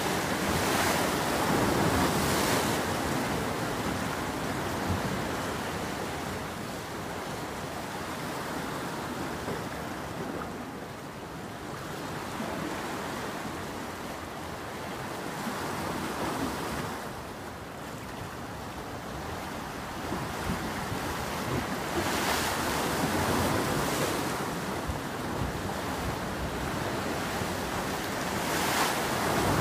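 Sea surf washing against a concrete breakwater, swelling and fading every several seconds, with wind buffeting the microphone.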